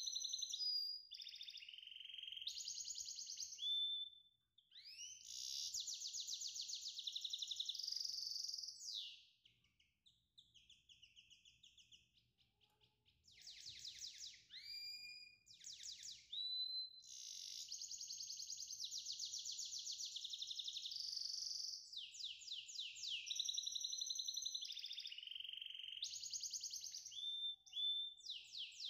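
A songbird singing in long, rapid, high trills and whistled pitch glides, broken by short pauses. It falls nearly silent for a few seconds about ten seconds in.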